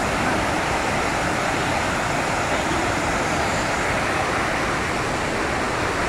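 A waterfall pouring into its pool: a steady rush of falling water.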